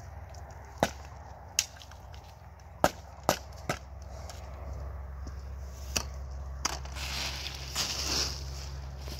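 A series of about seven sharp, irregularly spaced knocks, like hard objects striking, then a rustling, scraping rush about seven to eight seconds in, over a steady low hum.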